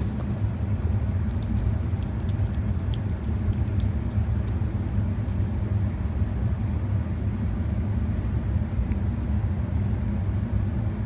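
A steady low rumble, with faint small clicks of a kitten eating wet food in the first few seconds.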